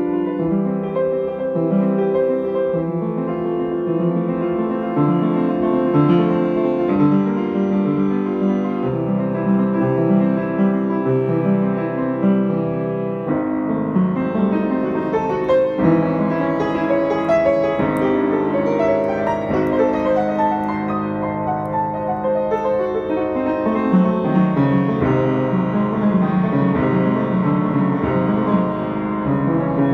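Piano playing a classical piece: a continuous flow of notes, with the chords changing every second or two.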